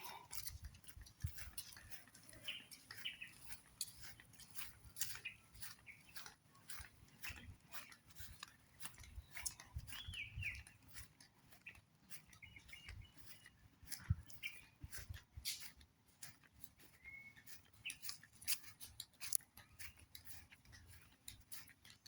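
Birds chirping now and then, a few short calls, over many scattered clicks and knocks and a low rumble.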